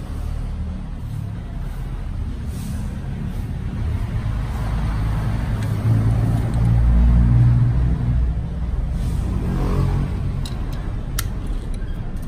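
A motor vehicle engine rumbling nearby, growing louder to a peak about seven seconds in and then easing off. A few sharp clicks come near the end.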